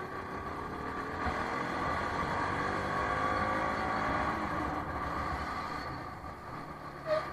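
Bajaj Pulsar NS200's single-cylinder engine running under the rider, its pitch rising steadily for about four seconds as it accelerates, then growing quieter as the throttle eases off near the end.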